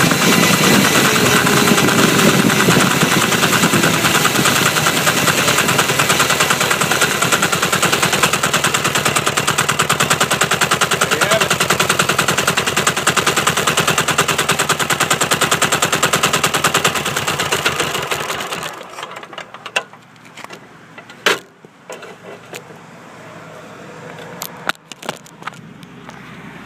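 Intercooled turbo diesel motorcycle engine running under way, a rapid even knocking of firing strokes mixed with wind rush. About 18 seconds in it drops away suddenly to a faint background with a few sharp clicks and knocks.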